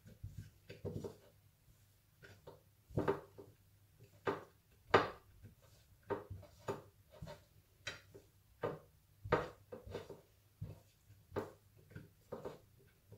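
Hand squeezing and kneading salted sheep's caul fat on a ceramic plate: irregular soft taps and knocks of fingers and fat against the plate, the loudest knock about five seconds in.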